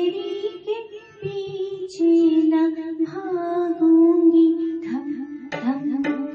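A woman singing long held, slightly wavering notes of a Hindi film song over soft instrumental accompaniment.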